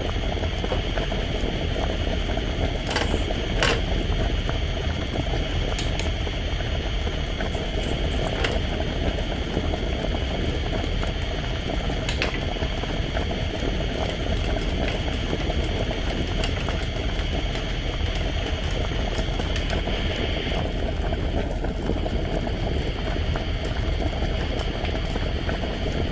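Steady bubbling boiling sound for a toy cooking pot on a toy stove, even throughout. A few light clicks sound in the first dozen seconds.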